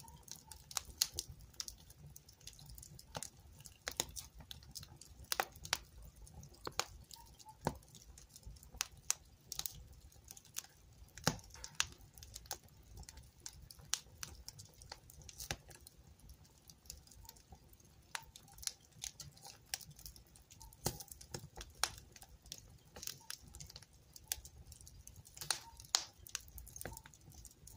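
Wood fire crackling in a fireplace: irregular sharp snaps and pops, several a second with some louder cracks, over a soft low rush of flame.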